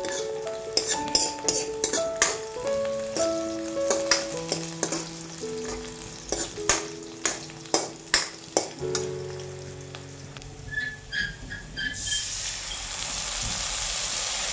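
Steel spoon scraping and clicking against a steel kadai while onions and green chillies fry in oil, over background music. About twelve seconds in, a steady hiss sets in as water is poured into the hot pan.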